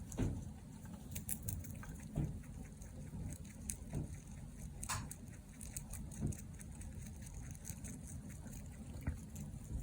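Mini Rex rabbit snoring softly, a low breath sound about every two seconds, with faint light clicks scattered through.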